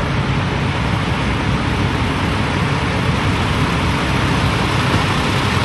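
Semi trucks' diesel engines idling at the fuel islands: a steady low rumble with a broad hiss over it.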